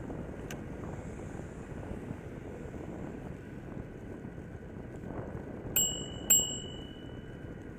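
Steady wind and road noise from a moving bicycle, then a bicycle bell rung twice about six seconds in, the two strikes half a second apart. The second ring carries on for over a second.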